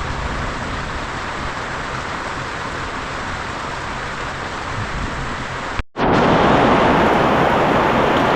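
Heavy rain pouring down on a tent, heard from inside as a steady hiss. About six seconds in it cuts out for an instant and comes back louder.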